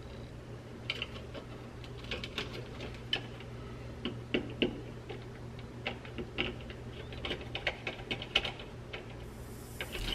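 Irregular small clicks and taps of a screwdriver and wire on a plastic thermostat terminal block as the green fan wire is seated and its terminal screw tightened, over a steady low hum.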